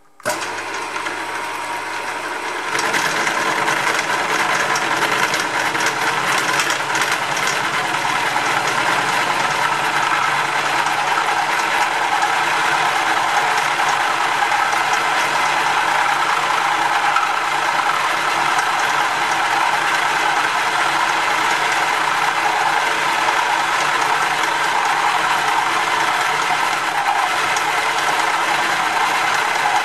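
Hare and Forbes HM48 milling machine starting up at 540 RPM, then a 7/8-inch Morse taper end mill cutting metal at 1 mm depth, which the machinist judges too heavy a cut. The noise starts suddenly, grows louder about three seconds in and stays a loud, steady mechanical clatter with gear whine.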